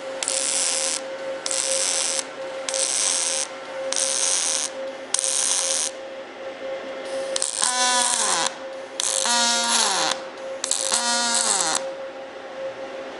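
Panasonic Active TAWERS robotic MIG welding: the arc strikes in a run of short hissing bursts, about six in the first six seconds, over a steady electrical hum. Later come three longer bursts, each ending in a falling whine.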